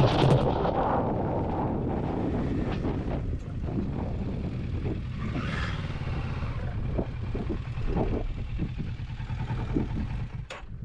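Kawasaki Versys 650 parallel-twin motorcycle running on the move, a steady low engine rumble mixed with wind noise and many short knocks and rattles. The sound drops away near the end.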